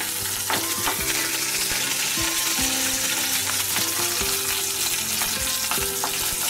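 Slit green chillies sizzling in hot oil in a metal kadai, with a spatula scraping and knocking against the pan as they are stirred.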